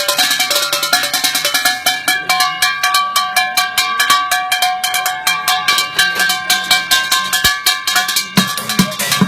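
Percussion music: fast, even strikes on pitched, ringing objects, with deep drum beats coming in about eight seconds in.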